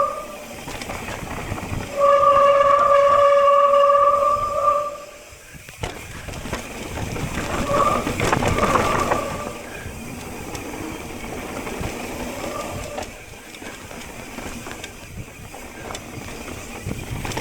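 Mountain bike disc brakes squealing: one steady whistle lasting about three seconds from about two seconds in, and a shorter, wavering squeal around eight seconds in, over the continuous rattle of tyres on a rough trail.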